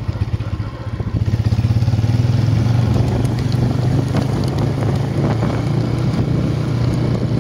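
Motorcycle engine running while being ridden. It picks up in the first second or two, then holds a steady beat.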